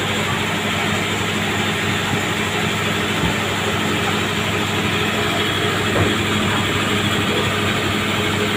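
Steady drone of a passenger ship's engines and machinery with an even low hum, heard on its enclosed vehicle deck, with a couple of faint knocks.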